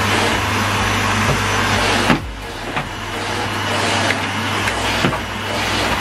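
Numatic Henry cylinder vacuum cleaner running, its motor giving a steady suction roar with a low hum as the nozzle works the carpet. A knock about two seconds in is followed by a brief drop in level, and there are a couple of lighter knocks later.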